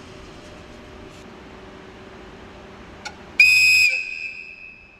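The whistle of an EF81 electric locomotive gives one short, loud, high blast about three and a half seconds in, then rings away over about a second. It is a signal sounded as the train gets ready to leave. Before the blast there is a steady low hum from the standing locomotive and a small click.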